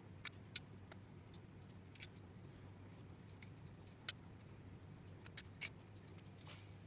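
Small screws and 3D-printed plastic parts being handled, giving about eight short, sharp clicks and taps scattered over several seconds, over a faint steady hum.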